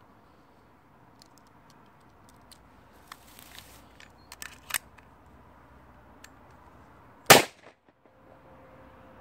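Celebratory gunfire: a few faint, scattered distant gunshots about three to five seconds in, then one loud, close gunshot about seven seconds in.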